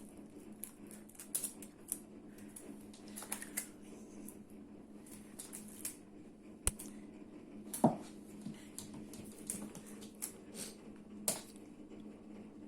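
Scattered light clicks and taps from a cat at play, irregular, with one louder knock about eight seconds in, over a steady low hum.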